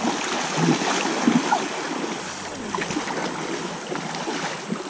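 Steady flow of water in a shallow creek, with splashing as children wade and kick through it.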